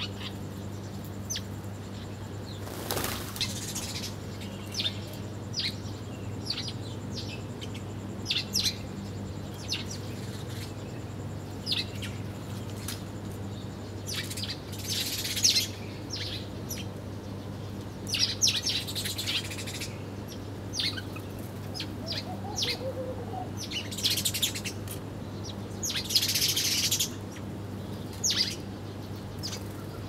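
House sparrows chirping in many short high notes, with bursts of wing flapping now and then as birds flutter to and from a feeding dish.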